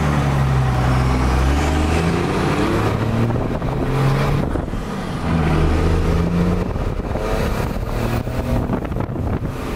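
First-gen Dodge Cummins 5.9-litre inline-six turbo diesel pulling under acceleration, its note climbing and then dropping back three times as it is run up through the gears, with air rushing past the open window. The engine has a bigger fuel pin and a 3200 rpm governor spring fitted.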